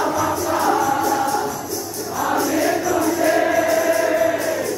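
A group singing a jhakri folk song in chorus, with tambourine jingles keeping a steady beat; the voices hold one long note in the second half.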